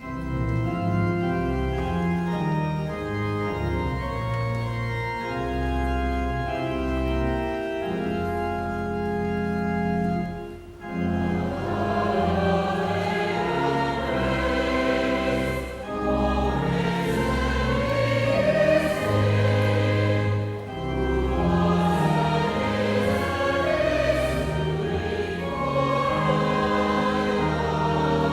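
Organ playing a hymn, held chords alone at first; from about eleven seconds in, many voices join, singing the hymn with the organ.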